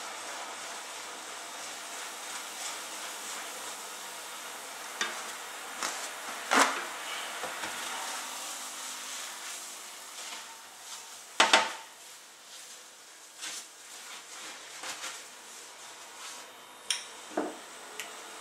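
Lemon sauce bubbling at a boil in a stainless steel saucepan, a steady hiss, with a few sharp knocks of a utensil against the pan as it is stirred. The two loudest knocks come about a third and two-thirds of the way through.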